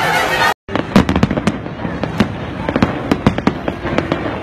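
A shouting crowd for about half a second, then a brief cut-out, then aerial fireworks going off in quick, irregular bangs and crackles.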